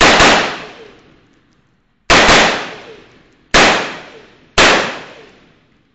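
Four single shots from a Colt M4 short-barreled rifle in 5.56 mm fitted with a Troy Industries Claymore muzzle brake. The shots are fired one at a time, the gaps shortening from about two seconds to one, and each shot dies away over about a second.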